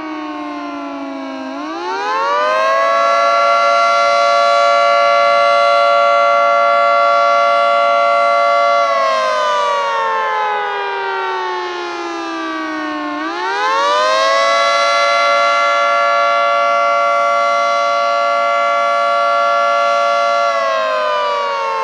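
Federal Signal 2T22A dual-tone outdoor warning siren sounding the attack signal. Its two-note chord winds up, holds steady for about six seconds, slides down, then winds up and holds again, starting to fall near the end.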